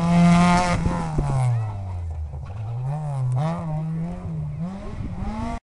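Peugeot 206 rally car's engine passing close at high revs. About a second in the revs fall away as it slows, with a few sharp cracks, then climb again in steps as it accelerates through the gears.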